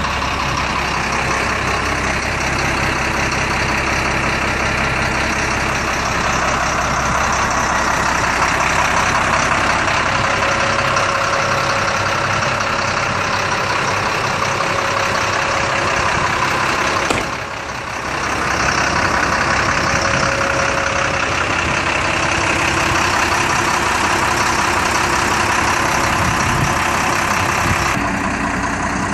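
GMC 7500 flatbed truck's engine running steadily with its hydraulic tilt bed being lowered. About two-thirds of the way through, the noise drops for about a second, then resumes.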